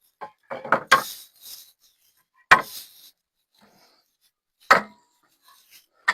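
Wooden boards and offcuts knocking against one another and a workbench as they are handled and set down: several sharp, separate wooden knocks a second or two apart.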